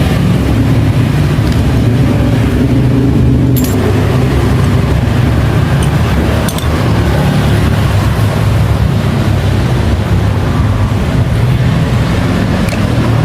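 Motorcycle engine running steadily at a low, even speed, with no words over it.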